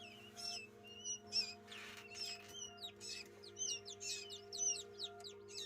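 Newly hatched quail chicks peeping, many short high chirps that fall in pitch, several a second, over a steady low hum.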